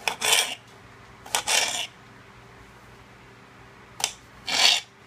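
Kitchen knife cutting a peeled burro banana into fry strips: three short cuts, each a sharp click followed by a brief scraping rasp.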